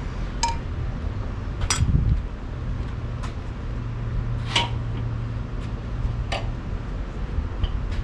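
Metal tongs and a saucepan clinking against the kettle grill and its foil, about six sharp clinks spread out, with a dull thump about two seconds in.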